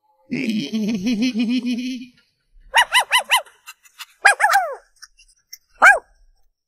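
Cartoon sound effects: a low, wavering moan for about two seconds, then a small dog's high yips, four in quick succession followed by a couple of falling yelps and one more yip near the end.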